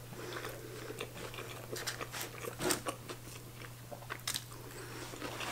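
A person chewing a big bite of hamburger close to the microphone: irregular soft crunches and wet mouth clicks, a few louder than the rest.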